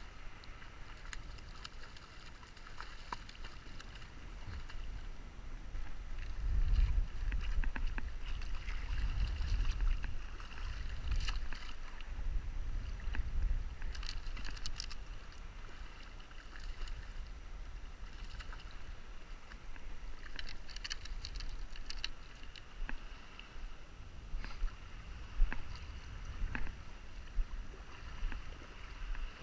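Water lapping and splashing, with a hooked fish thrashing at the surface in short sharp splashes now and then, over a low rumble of wind on the microphone.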